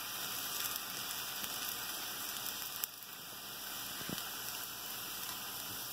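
Hot oil sizzling steadily in a frying pan after a fried kingfish steak has been lifted out on a slotted spoon, with two sharp pops about three and four seconds in.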